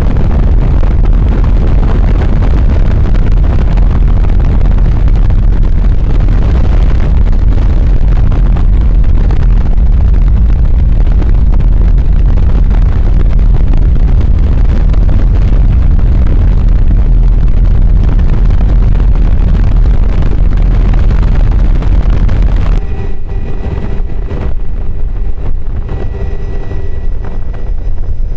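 Heavy wind buffeting the microphone at the open door of a flying helicopter, blended with the helicopter's rotor and engine noise. About 23 seconds in it cuts abruptly to a quieter stretch where steady engine tones come through the wind.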